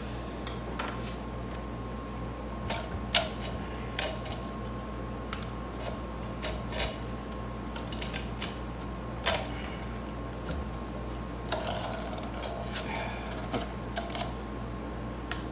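Scattered clicks and knocks of the metal parts of a DeWalt portable band saw being handled on a workbench, the sharpest about three seconds in. Under them runs the steady hum of an air conditioner and fan.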